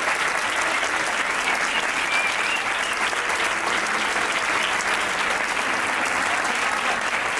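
A large audience applauding steadily, with dense, even clapping throughout.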